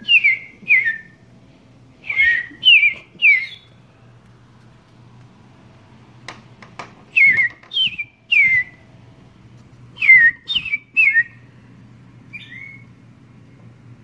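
A person whistling to a bird: short downward-slurred whistled notes in groups of three or four, with pauses between the groups. Near the middle there are a few sharp clicks.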